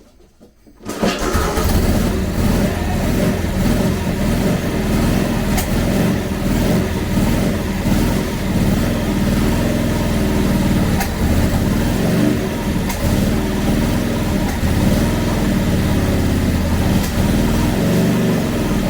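1943 Harley-Davidson WLA's flathead V-twin engine catching about a second in, then running with the revs rising and falling. The engine has just been overhauled and is being started after the rebuild.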